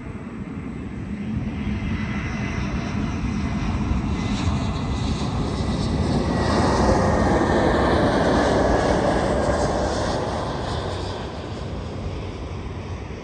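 An aircraft passing by: its engine noise swells to a peak a little past the middle and then fades away, with a thin whine that drops slightly in pitch as it goes by.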